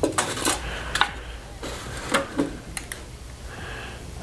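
Light clicks and taps of a steel tape measure being handled, its blade tapping against the fuselage while an opening is measured: a quick cluster at the start, then a few single clicks.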